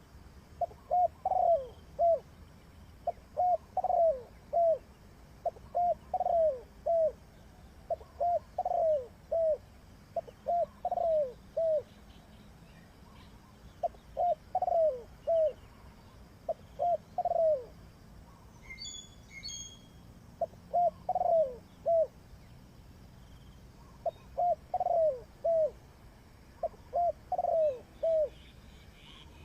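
Spotted dove cooing: about ten repeated phrases of three or four short, low, falling coos, one every two to three seconds. A few brief high chirps from another small bird come in about two-thirds of the way through.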